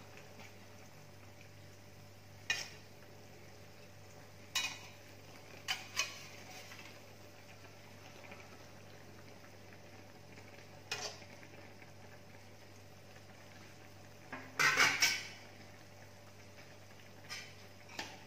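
A metal spatula and ladle clink and scrape against a steel plate and a steel wok as tofu cubes are pushed off the plate into the broth. Single clinks come every second or few, with a louder cluster of clatter about fifteen seconds in, over a steady low hum.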